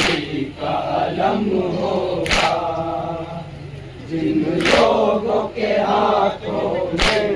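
A group of men chanting a noha in unison. A sharp collective slap cuts across the chant about every two and a half seconds: the mourners beating their chests together in matam.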